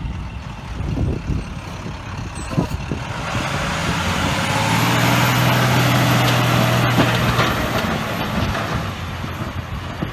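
Snowplow truck passing close by while plowing: its engine hum and the broad hiss of the plow pushing snow swell to a peak about halfway through, then fade as it moves away.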